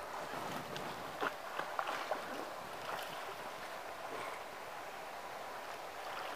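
Water splashing from a swimmer's arm strokes in a pool, with a few sharper splashes in the first three seconds, then softer lapping as she reaches the wall.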